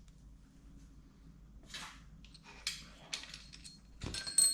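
Metal tools clinking and rattling as a freshly flared hard fuel line is worked loose from a tube-flaring die set. There are light scattered clicks at first, then a cluster of sharper metallic clinks with a brief ring about four seconds in.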